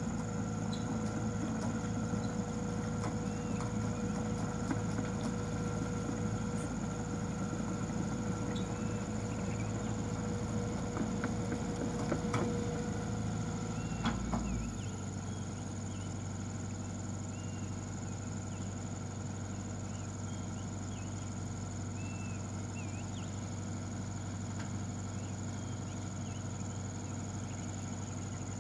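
Hitachi excavator's diesel engine running under load with clanking from its steel tracks as it climbs a slippery, muddy slope. About halfway through the load drops and the engine settles to a steadier, quieter run.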